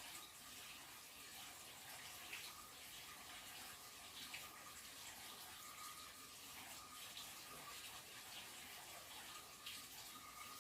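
Faint steady running water, with a few light ticks.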